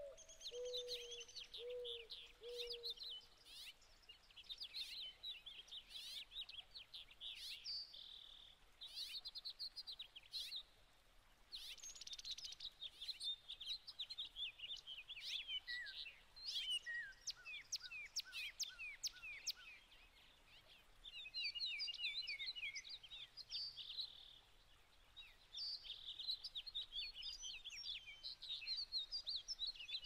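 Wild birds chirping and chattering, with many short, high calls overlapping. A few lower notes sound in the first three seconds, and a run of falling notes comes near the middle.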